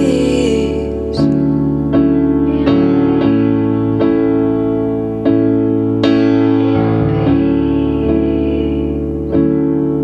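Soft background music: sustained piano-like keyboard chords, with new notes struck at a slow, steady pulse.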